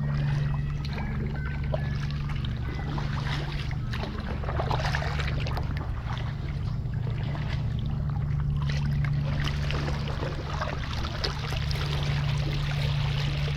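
Kayak paddle strokes in calm water, the blades dipping and splashing with trickling drips, over a steady low hum.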